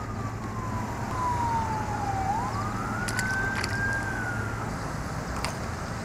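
Emergency-vehicle siren wailing, one slow fall in pitch followed by a rise and a gentle fall, over a steady low hum.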